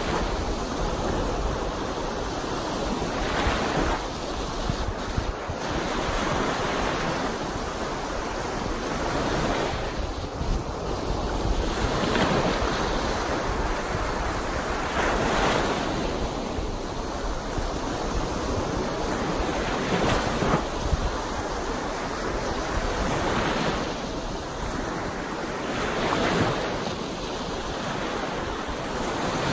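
Choppy Lake Superior waves breaking and washing onto the shore one after another, surging every two to three seconds over a constant wash, with wind rumbling on the microphone.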